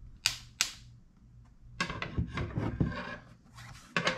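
Sharp clicks and rattling from the Goal Zero Nomad 10 solar panel's adjustable metal wire kickstand as it is rotated and snapped into position. The panel is handled at the same time. Two quick clicks come within the first second, a stretch of clattering follows, and another click comes near the end.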